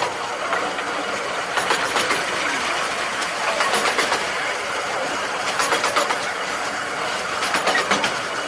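15-inch gauge miniature railway carriages running along the track: a steady rumble and rush of wheels on rail, with irregular sharp clicks as the wheels pass over rail joints.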